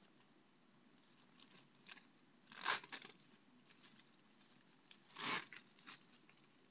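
Plastic sanitary pad packaging being torn open, with two short rips, one a little under three seconds in and one about five seconds in, between faint crinkling and rustling.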